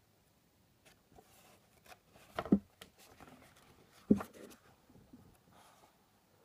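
Pages of a paperback book being flipped through by hand: soft paper rustling, with two sharp, louder page flips about two and a half and four seconds in.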